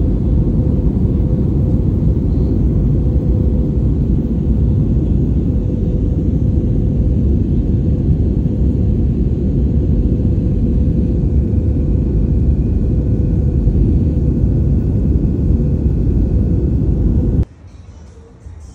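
Jet airliner cabin noise heard at the window seat: a loud, steady rumble of engines and airflow with a faint steady hum on top. It cuts off suddenly near the end, giving way to a much quieter background.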